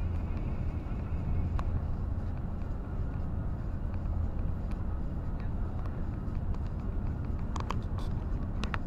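Steady low engine and road rumble heard inside a vehicle's cab while driving at motorway speed, with a few short sharp ticks near the end.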